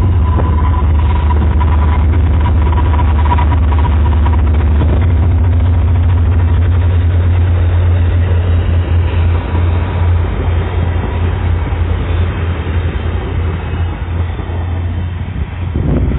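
Via Rail passenger train running past, a loud continuous rumble of the train on the rails that eases and wavers in the second half as the train draws away.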